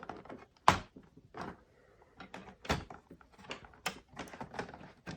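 Plastic clicks and knocks from an HP 15 notebook's case parts being worked loose and pried apart by hand, with one sharp snap well under a second in and a dozen smaller clicks after.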